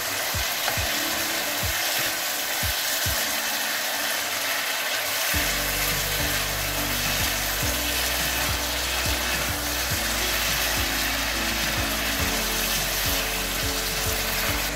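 Chicken and sliced chillies stir-frying in a hot nonstick wok: a steady sizzle, with the spatula scraping and knocking against the pan several times a second.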